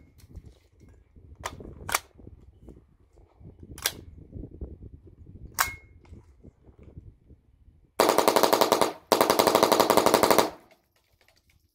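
AR-15 short-barrelled rifle with a CMMG .22 LR conversion kit and a Franklin Armory binary trigger, firing in binary mode. A few single shots come a second or two apart, then about eight seconds in two long strings of very rapid fire, the binary trigger firing once on the pull and once on the release.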